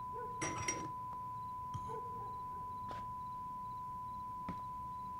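Light clinks and knocks of glassware, a decanter and a small shot glass handled on a table, a few separate touches over several seconds, the strongest about half a second in. Under them runs a steady high tone from a television showing a test card.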